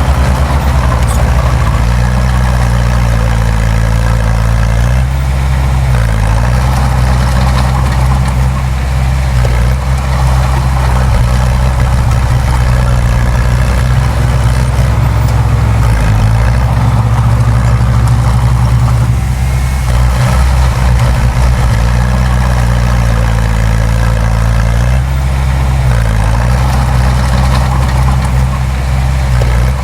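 Diesel engine of heavy earthmoving machinery running steadily and loud, its pitch shifting slightly every several seconds as it works.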